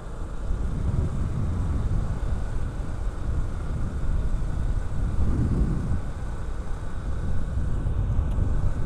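Steady low rumble of a moving motorcycle, a Honda Supra X 125, mixed with wind on the microphone as it rides along.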